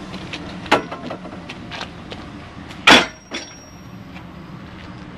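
Metal clanks from an aluminium tool board of air shores being moved in a rescue truck's compartment: a knock about a second in, a loud clank with a brief metallic ring near the middle, and a smaller knock just after. A steady low hum runs underneath.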